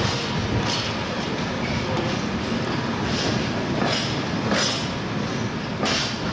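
Train passing close by: a steady rolling rumble of wheels on the rails, with repeated sharp clacks as the wheels cross rail joints.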